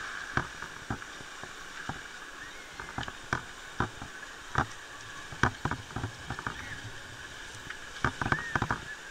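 Footsteps clacking on beach cobbles, irregular sharp knocks about one to three a second, over a steady hiss.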